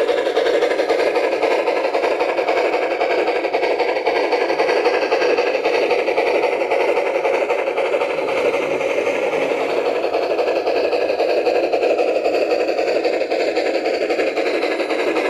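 Bachmann G-scale Shay running on track, its SoundTraxx Tsunami2 sound decoder playing steam-locomotive sounds through its small speaker: a steady rushing chuff and hiss.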